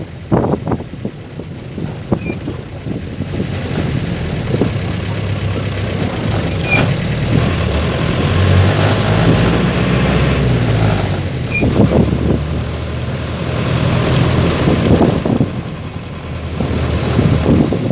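Mercedes-Benz LO 814 bus's diesel engine running under way, heard from the driver's seat, getting louder through the middle and easing off near the end. Frequent short knocks and rattles from the body run through it.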